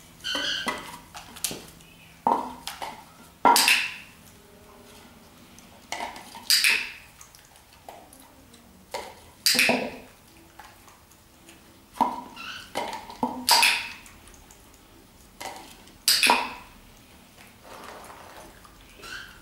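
Dog bowls knocking and clinking against each other and the floor: about eight sharp clatters, each ringing briefly, a few seconds apart.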